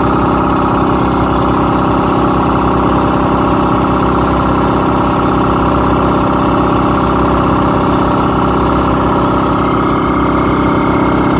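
Quincy air compressor running steadily as it pumps its tank up toward its cut-off pressure.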